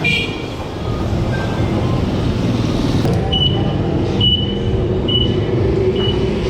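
Steady road-traffic and vehicle engine rumble; from about halfway a vehicle's reversing alarm starts, a short high beep repeating about once a second.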